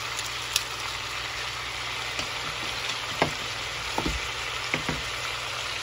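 Oil, onion and cabbage sizzling steadily in a cooking pot, over a steady low hum. A few short light knocks come through, about four times.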